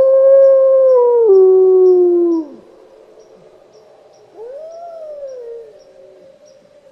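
Wolves howling: one long, steady howl, already under way, that steps down in pitch about a second in and ends about two and a half seconds in, then a second, quieter howl that rises and falls, from about four and a half to six seconds in.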